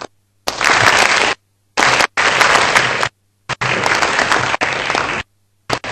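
Audience applauding, the clapping cutting out abruptly to silence several times.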